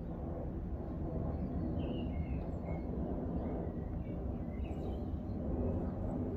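Steady low background rumble with a few faint, short bird chirps about two seconds in and again near five seconds.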